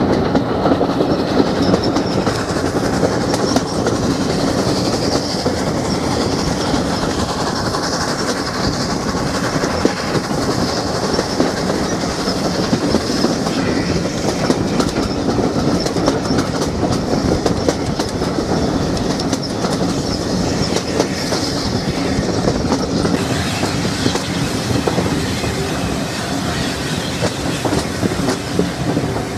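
Passenger train coach running along the line, its wheels clicking over the rail joints above a continuous rumble, heard through an open carriage window.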